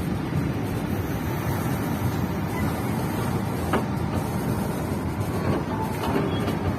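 Steady rumble of a passenger train running along the track, with a single light click a little past halfway.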